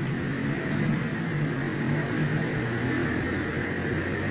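Steady mechanical drone from a running motor, with an even low hum and a faint high whine.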